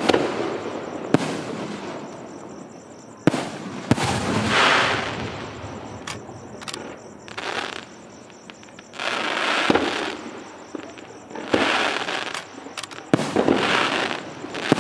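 Aerial firework shells bursting overhead: about ten sharp bangs at irregular spacing, several followed by a second or so of crackling as the stars burn out.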